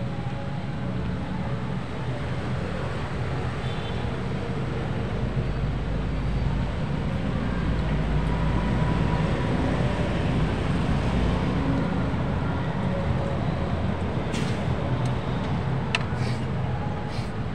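A steady low outdoor rumble that swells for several seconds in the middle. Near the end come a few sharp clicks, the strongest as a plastic bottle-cap draughts piece is set down on the board.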